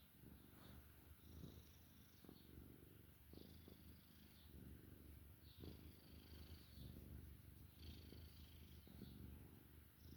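Domestic cat purring faintly and continuously, the purr swelling and easing with its breaths about every two seconds.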